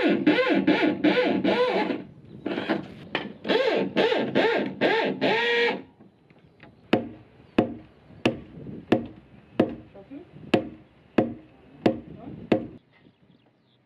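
Electric drill running into timber in short bursts for about six seconds, its motor whine rising and falling as the trigger is worked. Then a run of sharp, evenly spaced knocks, about three every two seconds.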